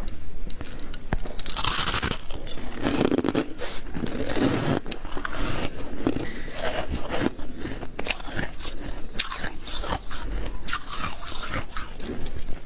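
Shaved ice being bitten and chewed: a continuous run of crisp, squeaky crunches, one after another.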